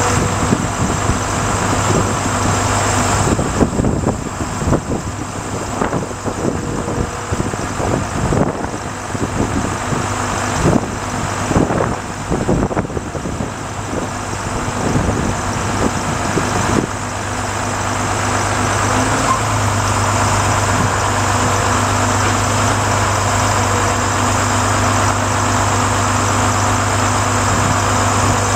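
Volvo truck's diesel engine running steadily, powering the Hiab knuckle-boom crane's hydraulics as the boom moves, with a steady hum and a few held tones. Irregular crackling noise comes and goes for several seconds in the middle.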